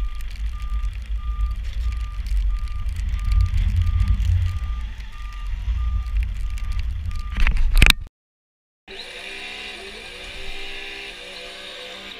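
Wind buffeting the microphone as a low rumble, with a vehicle's reversing alarm beeping steadily about one and a half times a second. About eight seconds in there is a loud crackle, a short silence, then background music.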